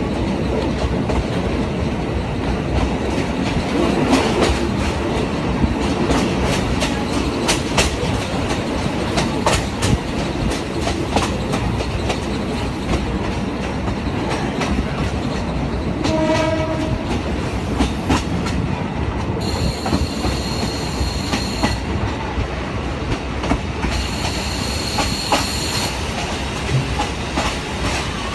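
A Yangon Circular Railway train running, heard from inside the carriage: steady rolling noise with the clickety-clack of the wheels over rail joints. A short horn sounds about halfway through, and a high-pitched squeal comes and goes in the last third.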